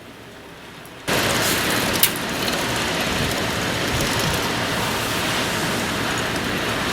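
Strong wind buffeting the microphone: a loud, even rush of noise that starts suddenly about a second in and holds steady, with one sharp click about two seconds in.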